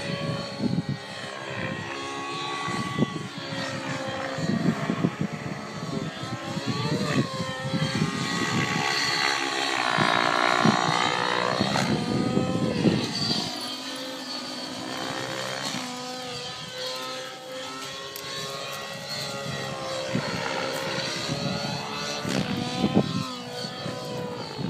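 Align T-Rex 700 nitro RC helicopter in flight, its nitro engine and rotor running at full flying speed. The pitch rises and falls again and again as it swoops and manoeuvres, and it is loudest about ten to thirteen seconds in.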